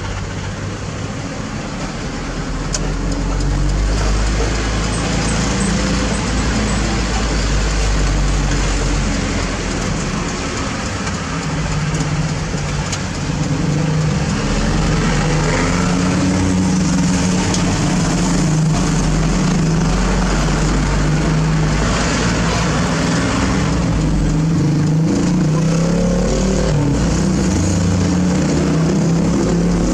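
Mitsubishi Fuso Canter light truck's diesel engine running under way, heard from inside the cab with road and wind noise. The engine note rises and falls with speed, getting louder a few seconds in, easing off briefly near the middle, then holding steady and loud.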